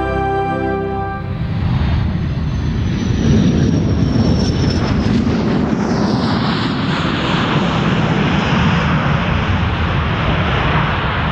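Jet engine noise of the BAC TSR2 prototype as it comes in and touches down, with a high whistle falling in pitch a few seconds in, then steady jet noise. Soft music fades out in the first second.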